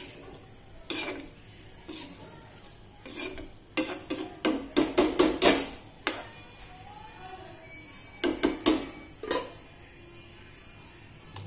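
Spatula knocking against a cooking pan: scattered sharp knocks, with a quick run of them about four to six seconds in and a few more around eight to nine seconds.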